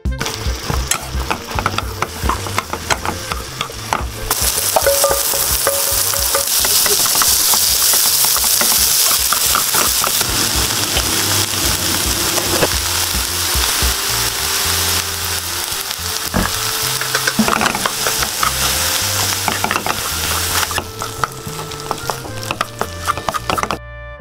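Eggplant pieces frying in melting butter in a nonstick pan, sizzling while chopsticks stir and turn them with light taps and scrapes against the pan. The sizzle gets louder about four seconds in and eases off near the end.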